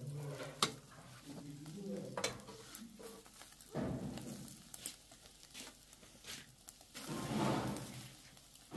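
Wood and charcoal fire crackling in a grill under skewers of meat, with scattered sharp pops over a soft sizzle. A brief rush of noise comes about four seconds in, and a longer one near the end.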